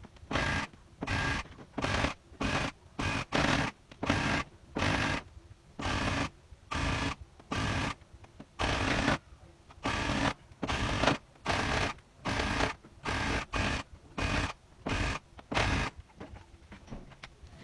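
Electric tufting gun running in short bursts, about one and a half a second, as the trigger is pulled and released. The bursts stop about a second before the end.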